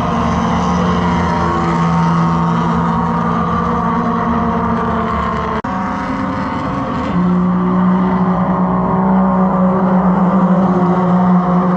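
Race car engines running loud and steady. There is a brief dropout about halfway through, after which a steadier, lower engine note takes over and grows a little louder.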